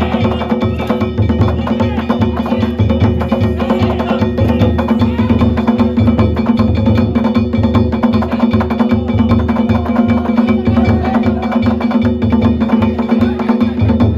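Danjiri festival hayashi: a taiko drum and hand-held kane gongs beaten in a fast, continuous rhythm, over a steady low hum.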